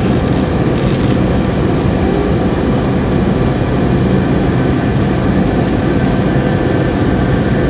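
Steady drone of jet engines and rushing air inside an airliner cabin during the climb after takeoff.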